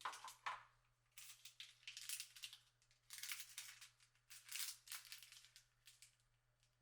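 Quiet crinkling and rustling of handled packaging in several short bursts, as items are sorted and moved about.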